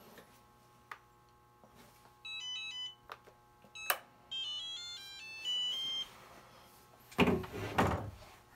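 Handheld RC transmitter switching on: two short runs of high electronic beeps stepping in pitch, a second or so apart, with a few sharp clicks from its buttons and switches. Near the end, a louder spell of knocking and rustling from handling.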